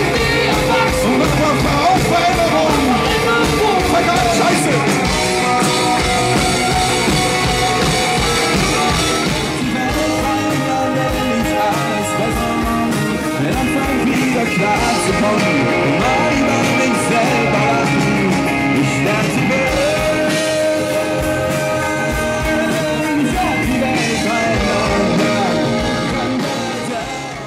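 A pop-rock band playing live, with electric guitars, drums and singing; the music fades out near the end.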